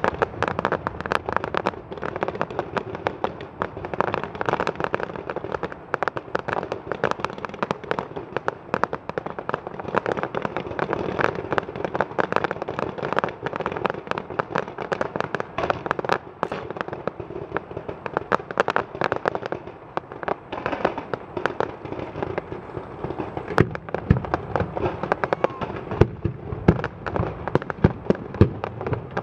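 Fireworks display going off without pause: dense crackling and popping of many shells bursting, with sharper, louder bangs in the last few seconds.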